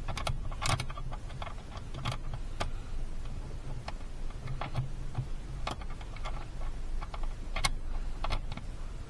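Irregular metallic clicks and clinks of hand tools, a Torx bit and socket, working at a car seat's mounting bolts, over a low background hum.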